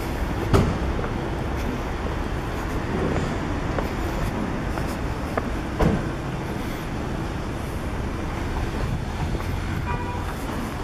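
City street ambience: a steady rumble of road traffic, with two sharp knocks, one shortly after the start and one about halfway through.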